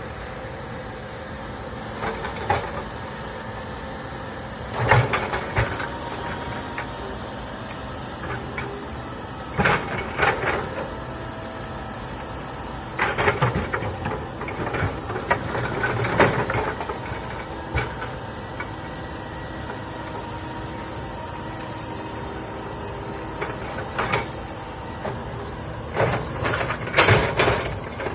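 Komatsu excavator's diesel engine running steadily while the machine works, with irregular bursts of knocking and clatter every few seconds, loudest near the end.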